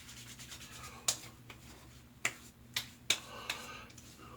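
Palms patting and slapping aftershave splash onto freshly shaved skin: a series of short, sharp slaps, about six of them, with faint rubbing in between.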